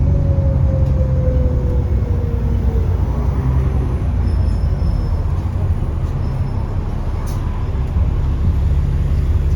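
Alexander Dennis Enviro400 double-decker bus running, heard on board: a steady low engine drone, with a whine that falls slowly in pitch over the first few seconds.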